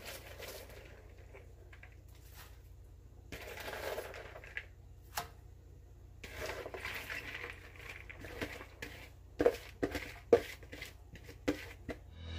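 Shredded cabbage being dropped by hand and tipped from a plastic bowl into a wok of broth, soft rustling and pattering, with a run of light knocks of bowl and utensil against the wok near the end.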